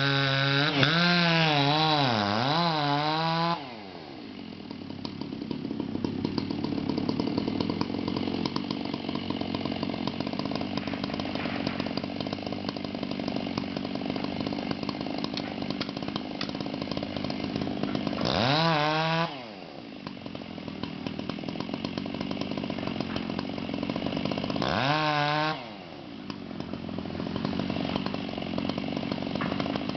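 Two-stroke chainsaw at full throttle, its pitch wavering as it cuts, then released so the pitch falls away about three and a half seconds in. It is briefly revved up and let down again twice later, with a steady engine running underneath throughout.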